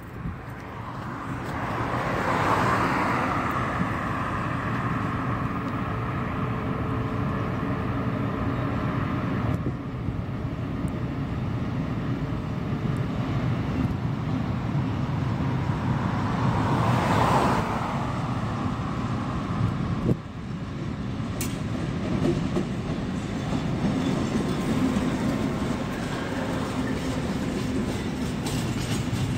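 A DB class 232 'Ludmilla' diesel locomotive runs steadily as it approaches hauling a long freight train, and it passes close by near the end. Twice, at about two and seventeen seconds in, a road vehicle passes with a noise that swells and fades.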